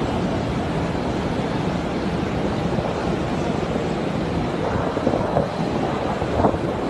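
Steady dense rushing noise of a large crowd walking through a big covered hall, with a couple of short knocks about five and six and a half seconds in.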